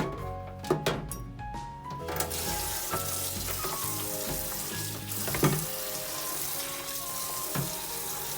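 Water running steadily from a tap into a sink, starting about two seconds in, with a few clunks of items being handled, under background music.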